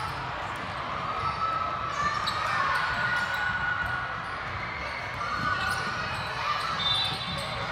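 A girls' basketball game in a gym: the ball bouncing on the court amid voices, with a few short high squeaks.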